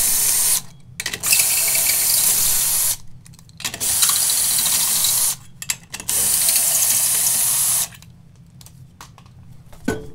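Compressed air hissing from a pneumatic air tool in repeated runs of about a second and a half, with short pauses between. The last run stops about eight seconds in.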